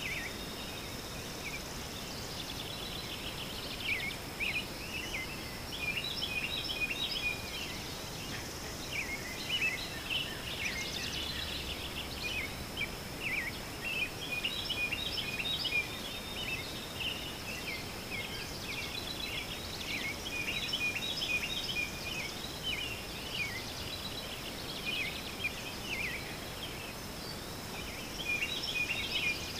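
Many small birds chirping and trilling in quick, overlapping short calls, over a steady high-pitched tone and faint outdoor background noise.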